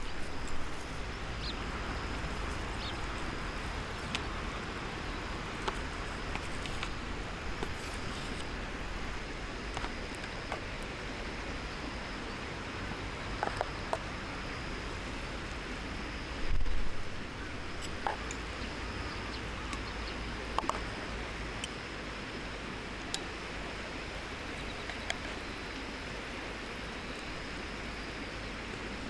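Wood campfire burning, with scattered small crackles over a steady outdoor hiss, and one louder low thump about 17 seconds in.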